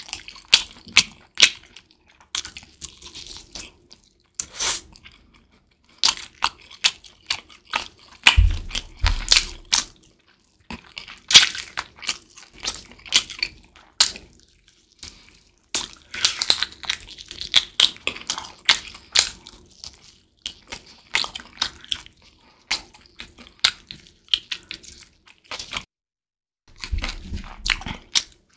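Close-miked eating of a sauced chicken drumstick: bites tearing meat off the bone and wet chewing with crunching, in irregular bursts with short pauses. A few low thuds come in the middle and again near the end.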